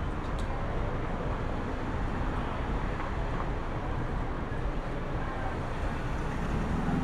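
City street ambience: a steady rumble of passing traffic and urban hum, with a brief click about half a second in and a low vehicle rumble swelling near the end.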